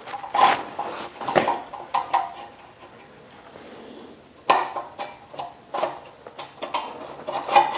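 Light metallic clinks and scrapes as a cast aluminium cover is worked by hand onto long bolts, with a quieter pause about halfway before the clinking picks up again.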